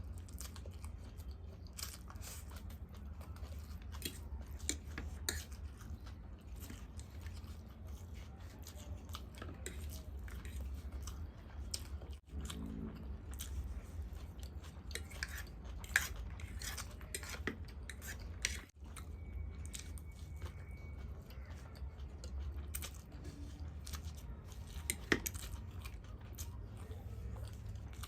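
A person chewing food close to the microphone, with many short wet mouth clicks and bites over a steady low hum.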